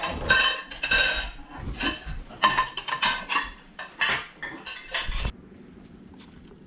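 Steel cutlery and a ceramic mug clinking and clattering against a ceramic plate as the dishes are picked up and cleared, a quick string of sharp clinks that cuts off abruptly about five seconds in.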